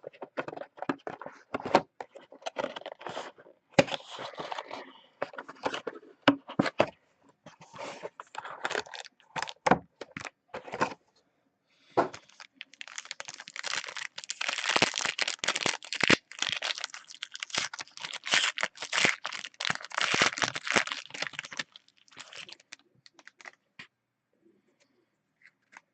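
A trading-card box and its pack being opened by hand: short clicks and crackles of cardboard and plastic handling, then about nine seconds of steady crinkling and tearing of plastic wrapping, going quiet near the end.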